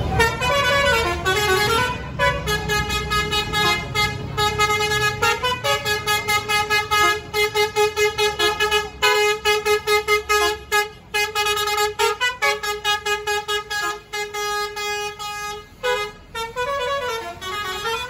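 Basuri musical horn on a tour bus playing a tune: gliding notes near the start and the end, and between them held notes and runs of quick repeated notes.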